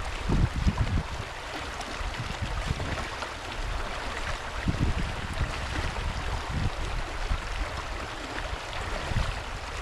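Swift creek water running over rocks, a steady rushing, with a few short low thumps mixed in.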